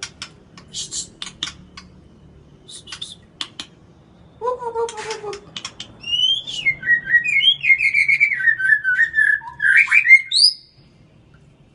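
White-rumped shama singing a rapid, warbling phrase of varied whistled notes, ending in quick rising upsweeps before it stops abruptly. It is preceded by scattered light clicks and a short falling note.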